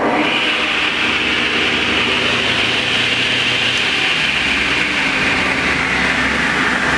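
Delta Unisaw's repulsion-induction bullet motor running with the saw blade turning, a steady hum under a high whine that climbs just after start-up and sags slightly near the end. It is running backwards, because its brush ring has been shifted about 30 degrees from the proper position.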